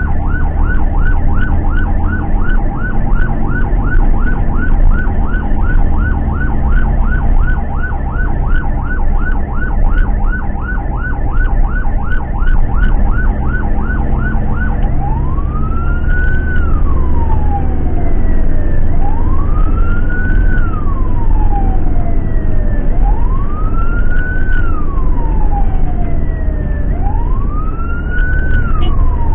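An ambulance's electronic siren, heard from inside the cab of the Toyota ambulance van. It starts as a fast yelp of about four sweeps a second, then about halfway through switches to a slow wail that rises quickly and falls away over about four seconds, repeating. The van's engine and road noise rumble underneath.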